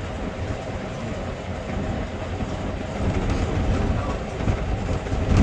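Steady low rumble and clatter of a vehicle in motion, with a louder bump at the very end.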